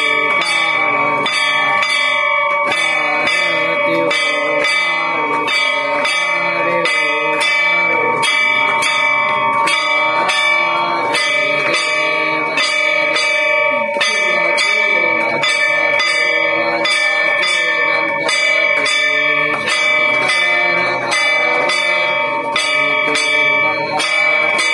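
Metal disc gong struck with a stick in a steady, even beat of about two strokes a second, its ringing overlapping and sustained between strokes, as is done during an aarti.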